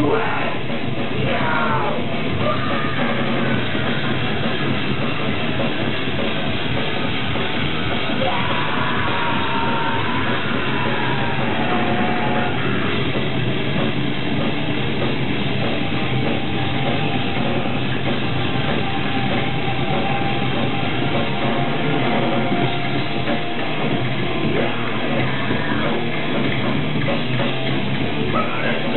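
Heavy metal band playing live, with electric guitars and a drum kit at a steady loud level; a pitched line glides downward in the middle.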